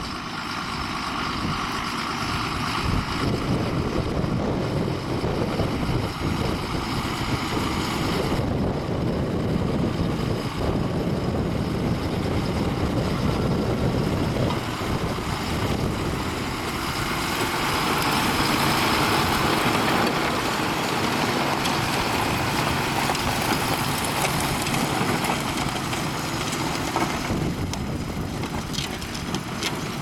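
John Deere 6930 tractor's six-cylinder diesel engine running steadily under load while pulling a reversible plough through the ground. It grows louder for a few seconds around the middle.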